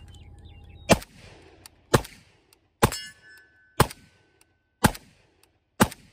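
Century Arms Draco, a Romanian AK-pattern pistol in 7.62×39, fired in semi-auto: six single shots about a second apart. A metallic ring hangs on for about a second after the third shot.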